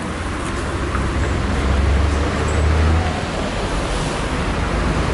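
Street traffic noise: a steady hiss and rumble of passing vehicles, the low rumble swelling about one and a half seconds in and easing off after three.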